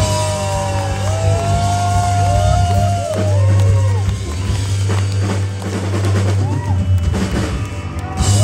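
Live rock band playing loud: drums, electric bass and electric guitars, with a steady low bass note and high gliding notes over it.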